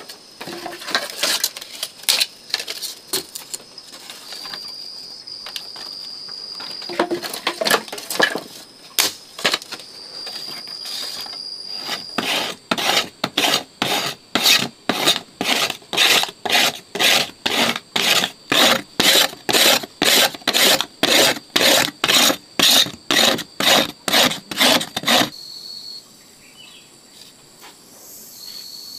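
Blade scraping along a wooden stick to shave off fine fibres for fire tinder: uneven scrapes at first, then a steady run of strokes about two or three a second that stops a few seconds before the end. A cricket's thin high trill comes and goes.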